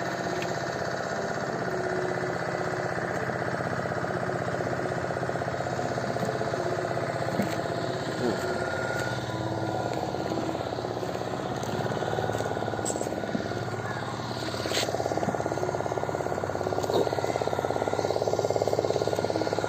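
An engine running steadily with a fast, even throb, getting a little louder about three-quarters of the way through.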